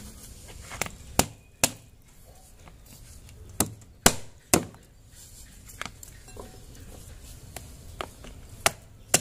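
A wooden pestle pounds green oleaster fruit (nhót) in a plastic bowl set on a wooden chopping board, crushing them. About ten sharp knocks come at an uneven pace, some in quick runs of two or three.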